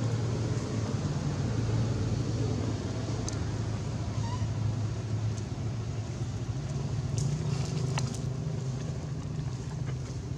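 A steady low engine hum with general outdoor background noise and a few faint clicks.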